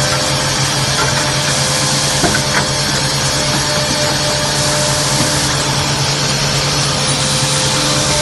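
Double-head wood drilling and milling machine running: a steady motor hum under a high hiss, with a few light clicks about two seconds in.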